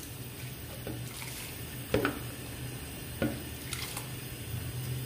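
Soaked rice and water being poured from a bowl into a steel pot of boiling water, with two sharp knocks of the bowl against the pot about two seconds in and again a second later. A steady low hum runs underneath.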